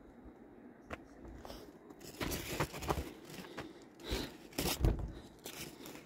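Footsteps crunching and scuffing on a gravelly, rocky trail: irregular crunches that begin about two seconds in, after a quiet start.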